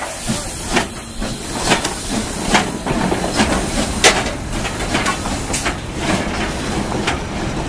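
Narrow-gauge 2-8-2 steam locomotive working at low speed: a steady steam hiss with sharp exhaust chuffs a little under one a second.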